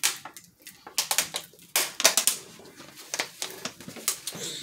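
Irregular sharp crackles and clicks of eating at a table, from crunching fried chicken and a crinkling plastic water bottle, several a second with short gaps.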